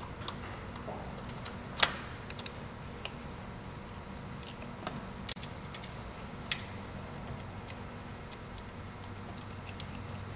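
Scattered metallic clicks and clinks of a wrench working the battery-cable nut on a motorcycle starter, the sharpest about two seconds in, over a steady low hum.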